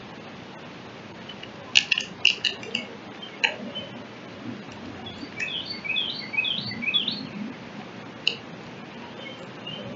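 Eastern bluebird calling and singing: a cluster of sharp chirps about two seconds in, then a run of short, soft warbled notes in the middle, and one more chirp near the end.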